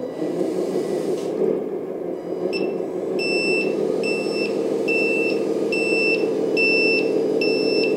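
RC truck sound module playing a steady simulated truck engine sound, joined about two and a half seconds in by a reversing beeper that beeps about once every three-quarters of a second as the truck backs up.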